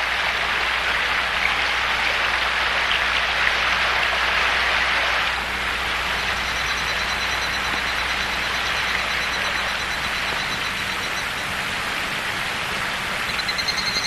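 Waterfall pouring over rock: a steady rush of falling water, easing a little about five seconds in. A high, rapidly pulsing chirp comes in faintly and grows clearer near the end.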